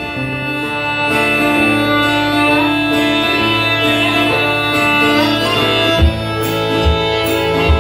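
Fiddle and acoustic guitar playing together live, the instrumental opening of an old-time country song. From about six seconds in, a low thump marks the beat a little under once a second.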